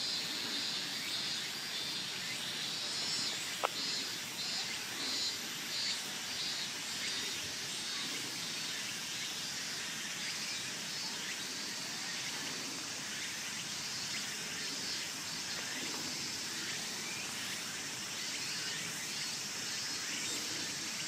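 Steady outdoor background hiss with a high chirping repeated at an even pace, strongest in the first seven seconds and again a little past the middle. A single sharp click comes about four seconds in.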